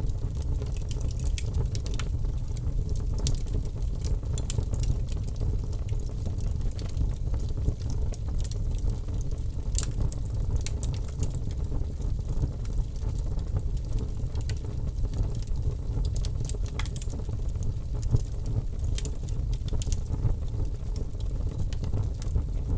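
Wood fire crackling: irregular sharp pops and crackles over a steady low rumble.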